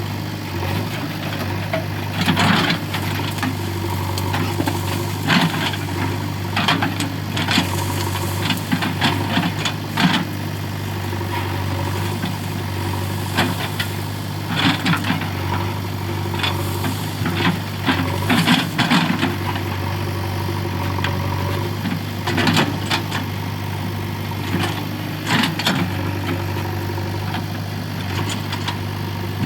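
JCB 3DX Eco backhoe loader's diesel engine running steadily, with frequent short sharp cracks and knocks over it in irregular clusters.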